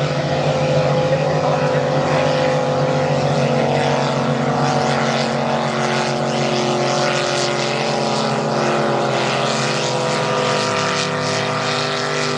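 Racing boats' high-horsepower engines running flat out: a loud, steady drone with a clear low pitch, which drops slightly about ten seconds in.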